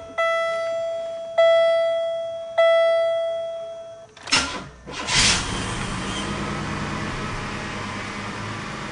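A car's dashboard warning chime rings three times, about a second apart, each ding dying away. Then the freshly rebuilt 3800 V6 of a 1998 Pontiac Grand Prix GT is cranked, catches after about a second with a short flare, and settles into a steady, even idle.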